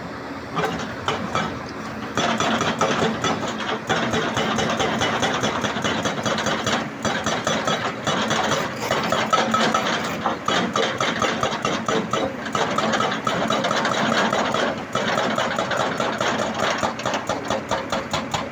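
Hitachi ZX210 excavator's diesel engine running with a fast, even pulse, growing louder about two seconds in and holding there.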